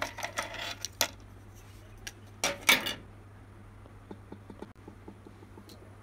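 Small plastic housing parts and a circuit board being handled: a quick run of clicks and light knocks, then a louder scraping rustle about two and a half seconds in, followed by a few faint ticks.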